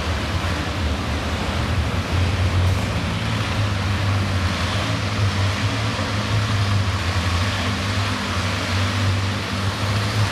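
Tractor engine running at a steady idle, low and even, with no revving.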